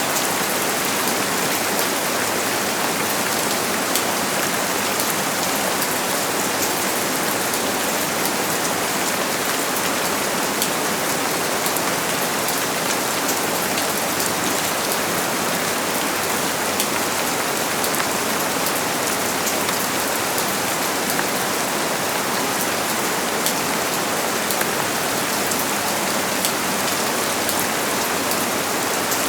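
Steady rainfall, an even hiss with the fine patter of individual drops landing on a surface.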